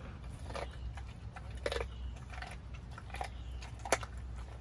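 A pit bull chewing a raw whole chicken, with irregular sharp crunches of bone between its teeth, the loudest near the middle and near the end.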